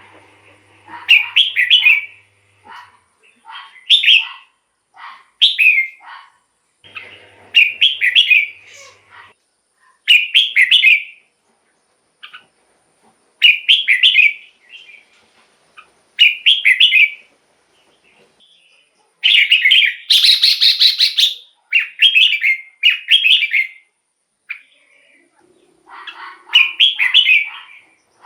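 Red-whiskered bulbul singing short, bright whistled phrases again and again with brief pauses between them. About twenty seconds in, one phrase is louder and reaches higher.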